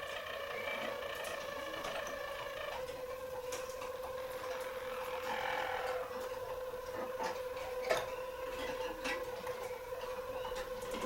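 Harzer roller canary singing its low, continuous rolling song: one steady tone that drops slightly in pitch about three seconds in, with a few faint clicks and a sharper click near the end.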